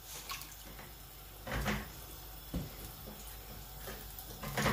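Pan of water at a rolling boil, with a few soft knocks and splashes as broccoli florets are dropped into it.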